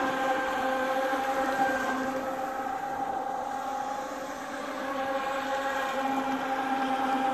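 Twin 3500kV 2845 brushless motors of an RC speedboat whining steadily at speed. The whine dips a little about four seconds in, then comes back.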